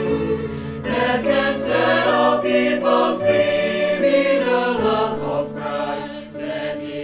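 Mixed virtual choir of women's and men's voices singing a Christian song in harmony over steady low notes.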